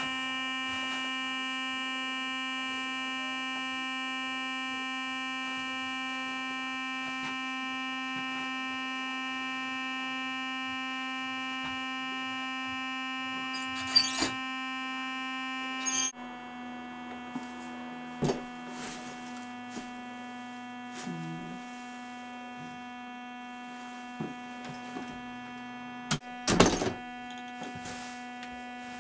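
Electric toothbrush buzzing steadily, one tone with many overtones. About halfway through it drops a little in pitch and becomes quieter, and several knocks and thuds sound over it, the loudest near the end.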